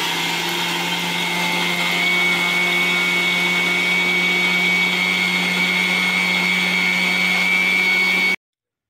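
Electric mixer grinder running steadily, its steel jar grinding dried small fish and red chillies into a powder: an even motor hum with a high whine over the churning of the contents. It cuts off abruptly near the end.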